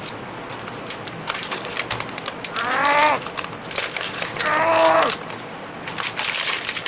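Utility knife cutting open a plastic blister pack: crackling of the plastic in several spells, with two squeals falling in pitch near the middle.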